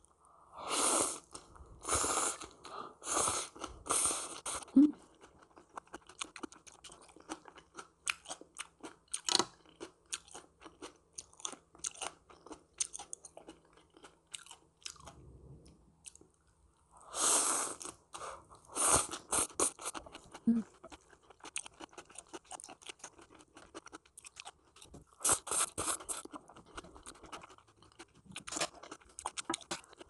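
A person chewing a crunchy green papaya salad with shredded vegetables and celery: crisp crunching bites in three louder spells, at the start, past the middle and near the end, with softer chewing and small mouth clicks between.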